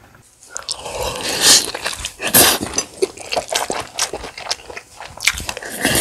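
Close-miked eating: a person biting and chewing food, with many sharp, irregular mouth clicks, loudest around one and a half and two and a half seconds in.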